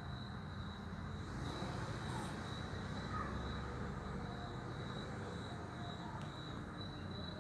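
Domestic cat snoring in its sleep: low, steady breathing noise with one gentle swell in the first half. A thin steady high-pitched tone sits behind it.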